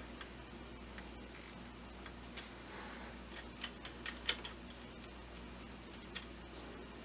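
A quick run of sharp, light clicks and taps, about eight in two seconds starting a little over two seconds in, with a brief hiss among them: hand-tool work on the reloading press's main shaft screw.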